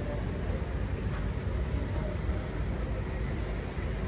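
Steady low rumble of motor-vehicle noise, with a few faint clicks.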